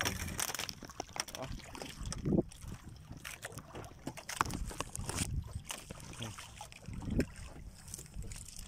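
Water sloshing against a small fishing boat's hull, with wind on the microphone and scattered knocks and clatter from handling aboard.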